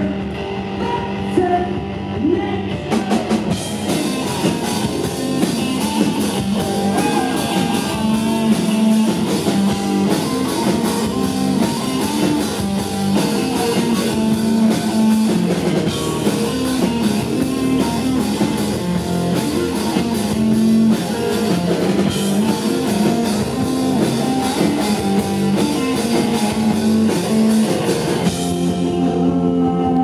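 A rock band playing live: electric guitar, bass guitar and drum kit, with singing. The drums' cymbals come in about three seconds in and drop back near the end.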